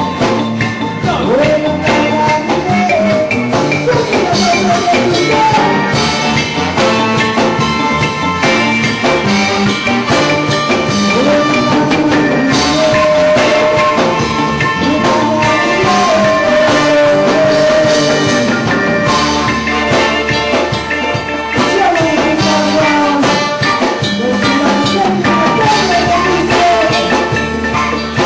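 Live reggae band playing, with drums, bass and a melodic line that bends like singing.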